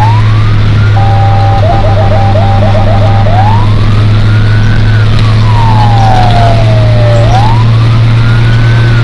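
Electronic emergency siren of a fire-brigade vehicle, heard loud from inside the cab: a quick rising sweep, then a fast two-tone warble for about two seconds, then from about three seconds in a slow wail rising and falling twice. Under it runs a steady low hum.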